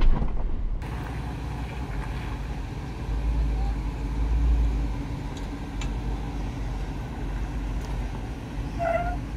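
Jeep Wrangler Rubicon Xtreme Recon engine running at crawling speed as the Jeep eases down a rock ledge. The low rumble swells for a couple of seconds about three seconds in. There is a brief pitched sound near the end.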